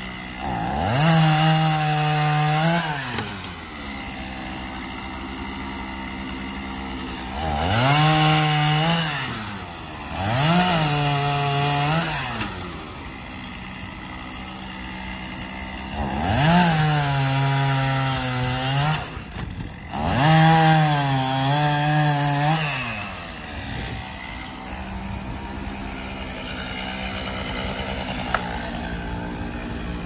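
Chainsaw cutting through the limbs of a felled tree. It revs up to full throttle five times for about two seconds each and drops back to a steady idle between cuts, then idles through the last several seconds.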